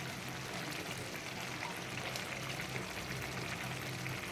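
Biryani rice and water simmering and sizzling in a clay pot on the stove: a steady hiss with faint fine crackles.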